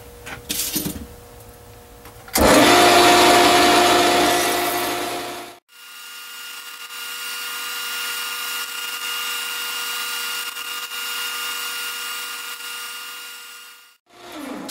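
Small benchtop metal lathe running, its chuck spinning with a steady whine, while a metal part is turned down a little at a time. A few light clicks come first, then a loud, harsh stretch of noise starts suddenly about two seconds in and stops abruptly about three seconds later, before the steady running sound.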